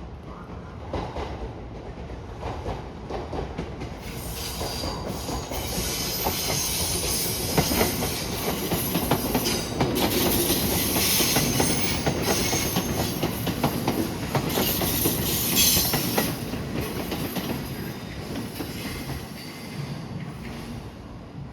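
A train moving along the rails close by, its wheels clacking over rail joints with a high squeal. The sound builds about four seconds in, is loudest in the middle and fades toward the end.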